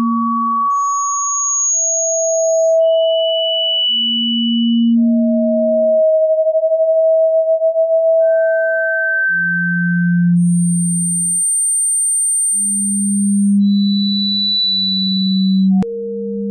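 Pure sine tones played for tinnitus relief, each held for one to two seconds at a different pitch. They jump between low hums and high whistles, often with two sounding at once. In the middle a pair of close tones beats with a fast wobble, and a short click comes near the end.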